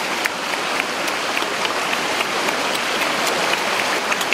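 Steady rushing of a rocky mountain stream, with scattered small smacking clicks of eating close to the microphone.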